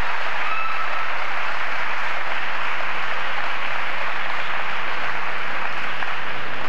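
Audience applauding steadily in an ice rink.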